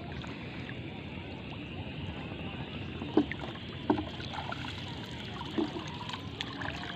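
Water sloshing and lapping around a banana-trunk raft in floodwater, a steady wash of noise with a few short sharp splashes about three and four seconds in and again near the end.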